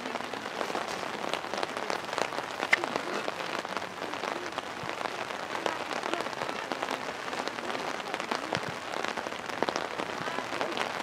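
Rain falling, many small drop ticks over a steady soft hiss.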